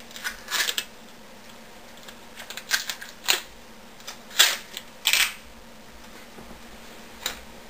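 Handling noise at a workbench: a scattering of short clicks and knocks, about seven, as small objects are moved and set down.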